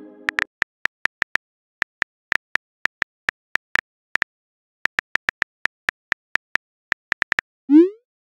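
Phone keyboard key-click sounds, quick irregular taps in short runs with brief pauses, as a text message is typed. Near the end a short rising whoosh plays as the message sends.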